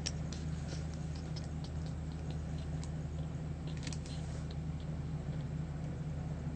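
Light, irregular clicks and ticks of a drawing compass being handled and adjusted, over a steady low hum; the clicks die away about four and a half seconds in.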